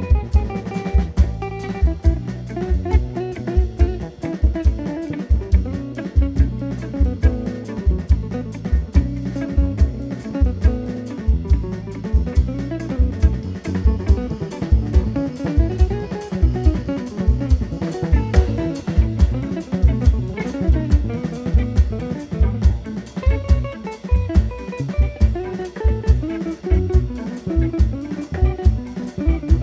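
Instrumental quartet playing: a guitar line over a double bass and a drum kit keeping a steady beat.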